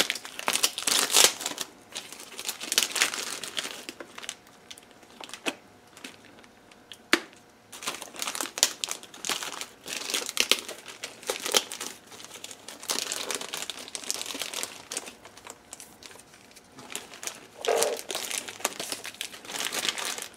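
Clear plastic wrapping being peeled off a drone remote controller and crumpled in the hands: irregular crinkling and rustling, with a lull about six seconds in and a single sharp click about seven seconds in.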